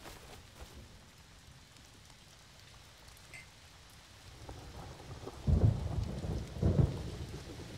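Rain falling, getting heavier about four seconds in, with two loud rumbles of thunder just over a second apart near the end.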